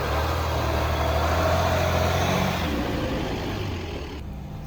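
Jeep engine running as it drives along a dirt trail, the engine hum and road noise swelling and then easing off.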